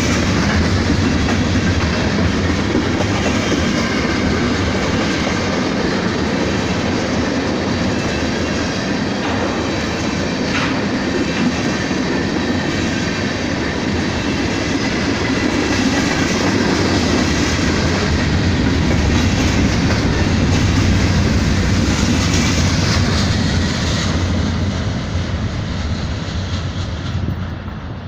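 Freight train cars rolling past with a steady rumble of wheels on rail, with one brief clank about a third of the way in. The sound drops away near the end.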